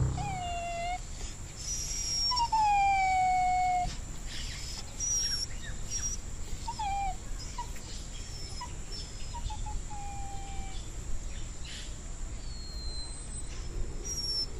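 Puppy whining: a series of high, falling whines. The longest and loudest comes about two seconds in and lasts under two seconds, followed by several shorter ones.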